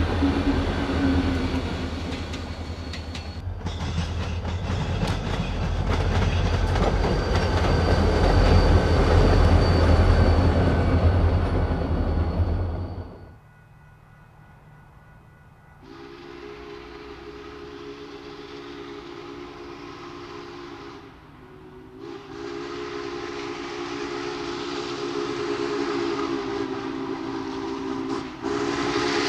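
Two EMD GP40-2 diesel locomotives running light, a loud, heavy rumble that ends abruptly about 13 s in. From about 16 s the chime whistle of Union Pacific Big Boy 4-8-8-4 steam locomotive no. 4014 blows a chord of several notes in long blasts, breaking off briefly twice as the train approaches.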